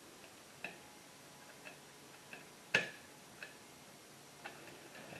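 Screwdriver tightening the side terminal screws of a USB duplex outlet: a few faint, irregular small clicks, the loudest just under three seconds in.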